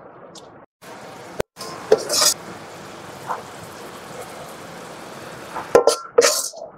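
A metal ladle scraping and clinking against an aluminium pot and a bowl as curry is ladled out, with a few sharp clinks and short scrapes over a steady low hiss.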